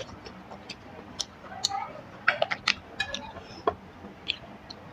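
Close-miked eating: chewing with wet mouth clicks and lip smacks, bunched together about halfway through.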